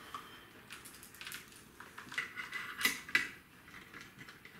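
Light metallic clicks and scraping as a bipod's clamp is fitted onto a side-mounted picatinny rail on an air rifle stock, with two sharper clicks about three seconds in.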